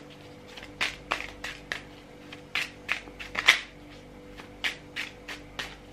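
A hand-held deck of cards being shuffled: an irregular run of sharp card snaps and taps, over a faint steady hum.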